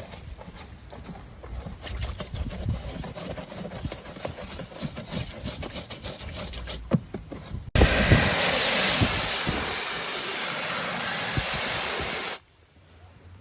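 Pressure hose nozzle spraying water onto the plastic globe of a Litter-Robot 4: a loud, steady hiss that starts abruptly about halfway through and cuts off suddenly near the end. Before it, a stretch of crackling and light clattering.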